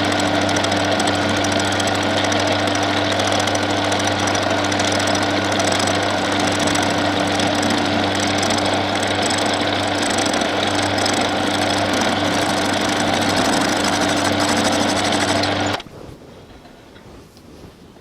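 Bernardo P 600 G metal lathe running while a boring bar cuts out the inside of an aluminium piston held in a four-jaw chuck: a loud, steady machining noise over a low hum, which cuts off suddenly near the end.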